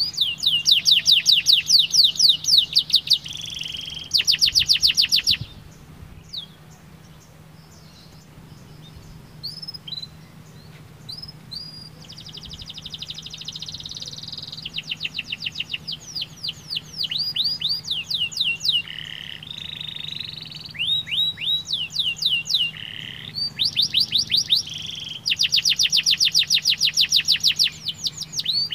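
Domestic canary singing in long runs of fast, evenly repeated high notes. A few seconds in, the song breaks off for about six seconds with only scattered short chirps, then the rapid trills start again.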